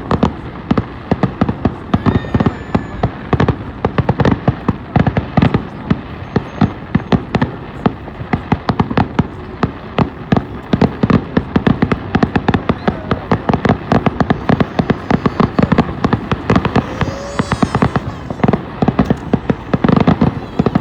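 Fireworks going off in rapid, dense succession: many overlapping bangs and crackles, several a second. A short whistle sounds about three quarters of the way through.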